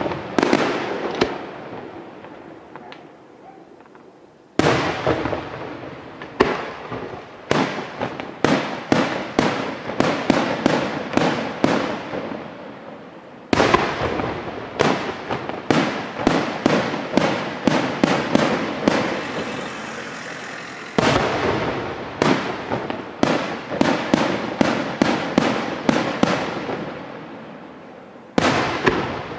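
Aerial firework shells bursting in rapid volleys, sharp bangs coming one or two a second, each trailing off in a rolling echo. A short lull comes about two seconds in before the barrage resumes.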